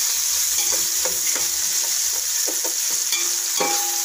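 Sliced onions, green chilies and whole spices sizzling steadily in hot oil in a metal pot, while a perforated metal spoon stirs them, scraping and knocking against the pot several times.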